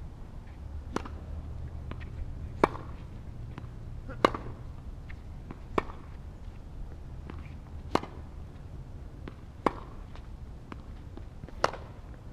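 Tennis rally: a ball is struck with rackets, about seven sharp pops one every one and a half to two seconds, over a steady low rumble.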